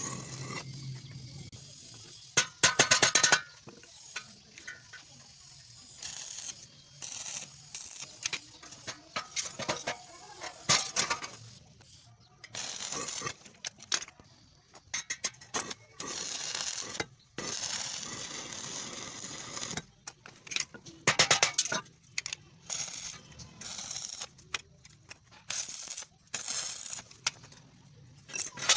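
Metal pieces clinking and knocking against each other in irregular strikes, with a few quick rattling runs of blows, as sheet metal and steel parts are handled and worked.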